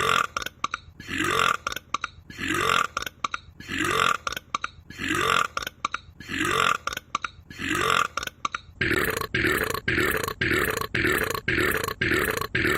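A short burp repeated over and over in a strict, even rhythm, each one rising slightly in pitch. It comes about three times every two seconds, then quickens to about five every two seconds near the end.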